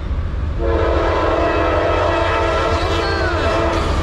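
Air horn of a Norfolk Southern AC44C6M diesel locomotive blowing one long chord blast for the grade crossing, starting about half a second in and cutting off just before the end. Under it runs the low rumble of the approaching freight train.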